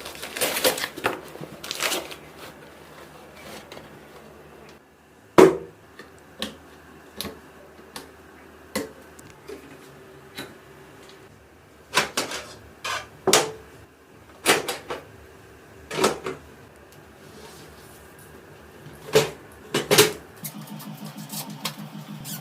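Irregular sharp clicks and knocks of computer parts being handled and fitted during a PC build, over a faint steady hum. Near the end a low rhythmic buzz starts.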